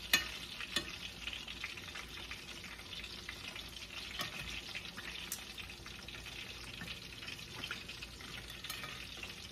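Food sizzling and crackling in a stainless steel frying pan, with metal tongs clicking against the pan as the food is turned; the sharpest click comes just after the start and another under a second in.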